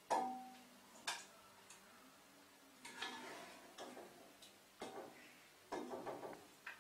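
Scattered sharp clicks and light knocks at irregular intervals. The first is the loudest and carries a brief ringing tone, and there is a quick cluster of knocks near the end.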